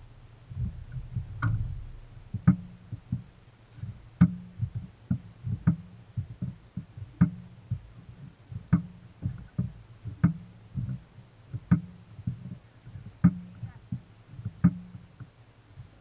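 Small waves slapping against the hull of the boat, each one a sharp knock with a short low ring, about every second and a half, with lighter knocks in between.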